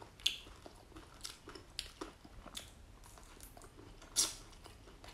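Mouth chewing crispy grilled crocodile skin and meat: irregular crunches, with a louder crunch about four seconds in.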